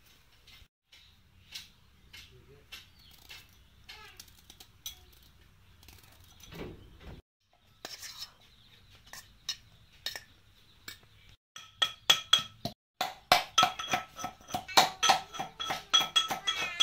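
Stainless steel pestle pounding in a steel mortar, crushing ingredients for a chutney: each strike clinks with a metallic ring. A few strikes come about twelve seconds in, then quick, steady pounding from about thirteen seconds; before that there are only faint clicks and scrapes of a knife and a spoon.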